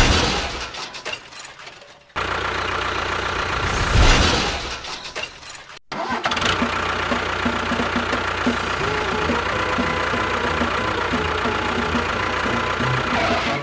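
A motor running, in edited pieces: two short bursts that die away, each cut off abruptly, then from about six seconds in a steady running sound.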